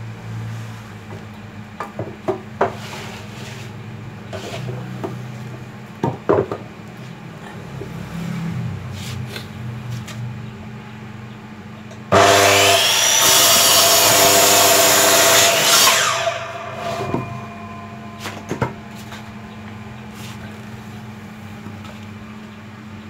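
Clicks and knocks of wood being handled and set against the saw's fence. About twelve seconds in, an electric miter saw starts with a whine and cuts through a piece of wood for about four seconds, then stops.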